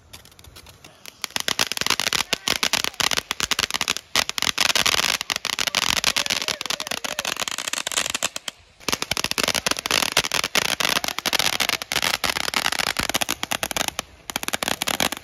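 Ground fireworks going off: a dense, rapid crackling over a hiss that starts about a second in and stops briefly twice, near the middle and near the end.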